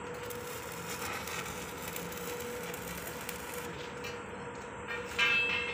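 Stick (arc) welding on a steel barrier pipe: the electrode arc crackles and hisses steadily. A brief louder sound comes near the end.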